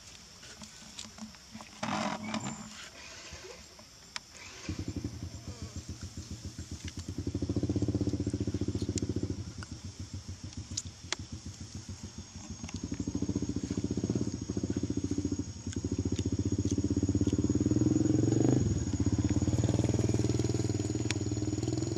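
A small engine starts up about five seconds in and runs with a rapid, even beat, growing louder several times as it runs on.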